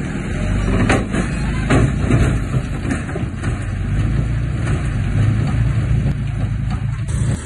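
Heavy diesel earthmoving machinery working: a steady low engine rumble with a few sharp clanks and knocks in the first three seconds. The sound drops and changes abruptly just before the end.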